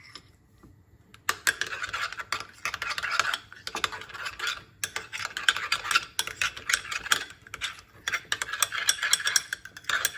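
Cutlery stirring in a bowl, mixing minced veal with mayonnaise, mustard and ketchup: quick, irregular clicks and scrapes of the utensil against the bowl, starting about a second in.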